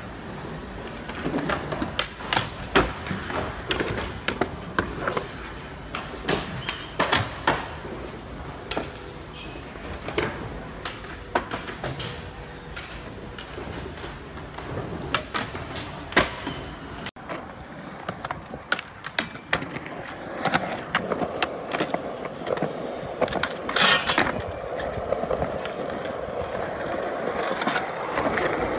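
Skateboard rolling on concrete, with repeated sharp clacks from tricks as the tail pops, the board hits ledges and the wheels land. In the later part a louder, steady rumble of wheels rolling on asphalt takes over.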